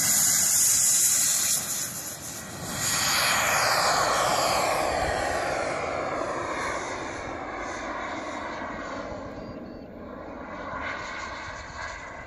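CARF Eurosport model jet's ATJ 120 turbine at full power for takeoff: a loud jet whine and rush as it rolls and lifts off. About three seconds in it rises again into a whoosh whose pitch falls, then fades steadily as the jet climbs away.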